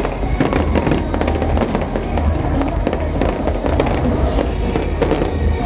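Aerial fireworks display bursting overhead: a dense, continuous run of sharp bangs and crackles over a steady low rumble.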